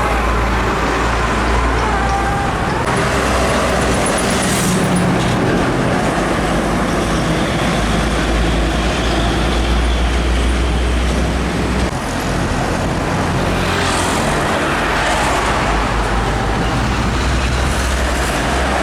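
Heavy road traffic: big trucks and other vehicles passing along a highway, a steady low engine rumble with tyre and wind hiss, swelling as vehicles go by about four to five seconds in and again around fourteen seconds in.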